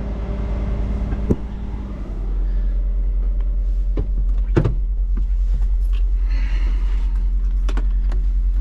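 An engine idling with a steady low drone that gets louder about two seconds in, under scattered clicks and knocks of someone climbing into a machine's cab, the loudest knock about four and a half seconds in.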